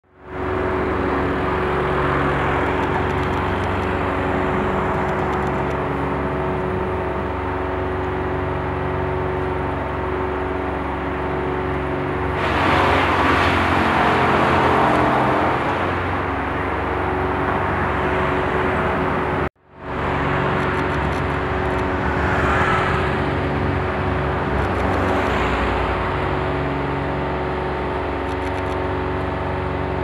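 A motor engine running steadily, with a louder rushing surge about twelve to sixteen seconds in. The sound cuts out for a moment about two-thirds of the way through.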